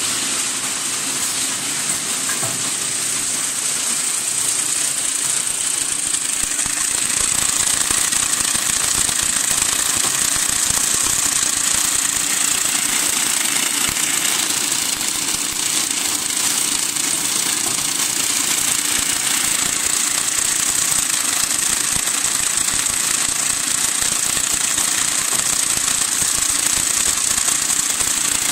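Automatic paper straw counting and packing machine running: a steady mechanical din of dense, fast rattling and clicking with a high hiss over it.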